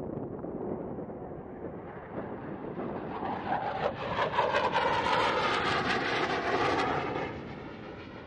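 F-16 Fighting Falcon jet passing in flight. Its engine noise swells over a few seconds, is loudest in the middle, then fades away near the end.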